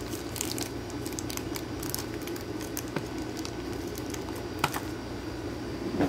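Plastic wrap crinkling, with small clicks and taps from a shrink-wrapped stack of clear hard-plastic Ultra PRO One Touch magnetic card holders being handled. A sharper click comes about four and a half seconds in.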